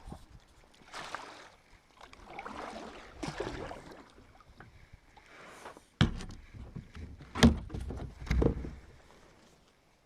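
Kayak paddle strokes swishing through the water, three of them, followed by a few sharp knocks, the loudest of them about seven and a half seconds in.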